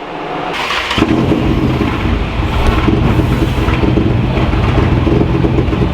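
VW Caddy Mk1 pick-up's engine firing up about a second in and settling into a steady idle that sounds quiet, running on its newly fitted fuel filter.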